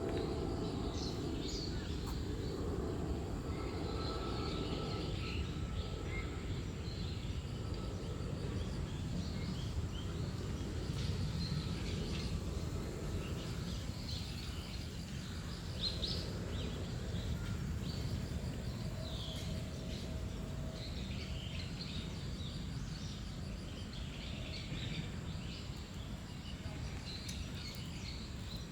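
Several small birds chirping and twittering in short, scattered calls over a steady low background rumble. The rumble is a little louder for the first few seconds, then settles.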